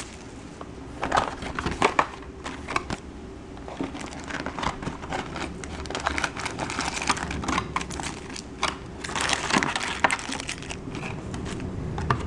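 Shrink wrap and cardboard of a sealed trading-card box being torn open and handled, with irregular crinkling, rustling and small clicks.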